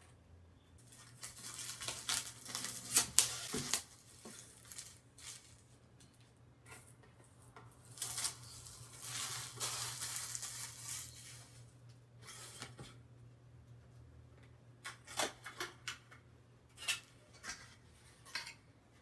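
Plastic shrink wrap being torn off a boxed Blu-ray collector's edition and crumpled in the hands, crinkling in two long spells. Near the end a few sharp clicks and taps as the cardboard box is handled and opened.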